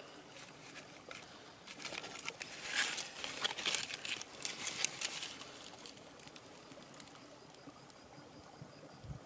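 Green leaves crinkling and scraping against a clay pot as frothy castor seed pulp is worked out of it, a few seconds of crackling in the middle.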